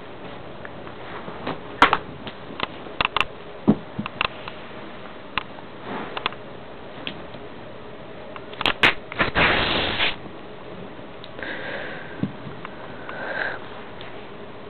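Sniffing close to the microphone among scattered clicks and knocks, with one louder noisy puff lasting about a second past the middle.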